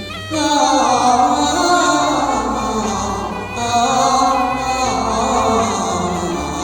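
Music: an instrumental passage of a Chinese song's backing track, a melody line sliding between notes over a steady bass.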